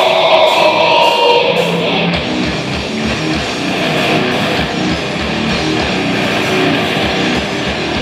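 Heavy metal band playing live: distorted electric guitars playing a riff, with the drums joining about two seconds in on rapid kick-drum beats.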